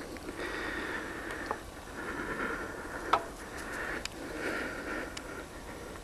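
Sniffing close to the microphone in three rushes, each about a second long, with short gaps between them. A few light clicks run through it, the sharpest about halfway.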